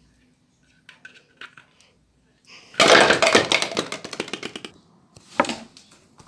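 Plastic toy bowling pins knocked over, clattering onto a wooden chair seat and the floor about three seconds in, with one more sharp knock near the end.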